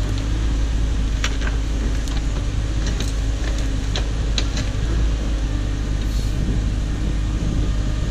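Cat 304 mini excavator's diesel engine running steadily under load while it digs, with occasional sharp clanks and knocks from the bucket and arm working through soil and stumps.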